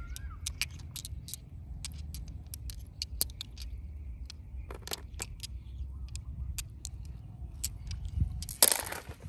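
Polished agate stones clicking against one another in a hand, in many small sharp ticks over a low steady rumble. Near the end comes a short splash of water.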